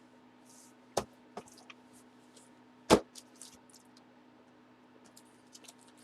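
Sports cards being handled on a table: two sharp taps or knocks about two seconds apart, the second louder, with faint clicks and rustles between them.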